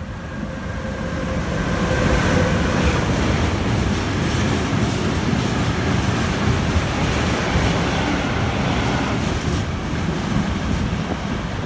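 Electric freight train passing close at speed without stopping: a faint falling whine as the locomotive goes by in the first seconds, then the steady rumble and clatter of covered goods wagons on the rails.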